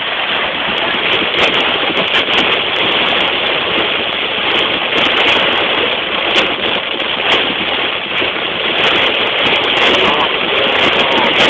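Heavy rain drumming on a car's roof and windshield, heard from inside the cabin: a dense, steady roar of water with many sharp individual impacts.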